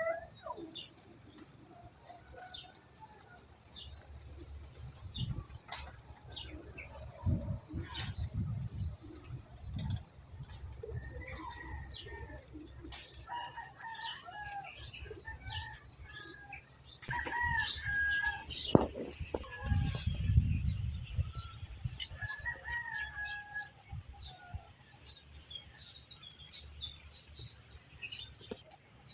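Farmyard chickens: roosters crowing and hens clucking amid a steady stream of small birds chirping, with a few low thumps.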